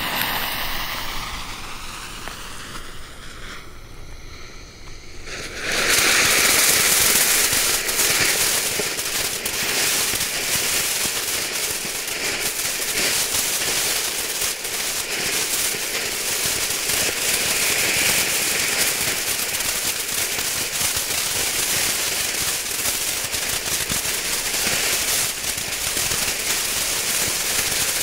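Leslie Red Blink firework fountain: the lit fuse hisses for about five seconds, then the fountain ignites with a sudden rush and sprays steadily with dense crackling for the rest of the time.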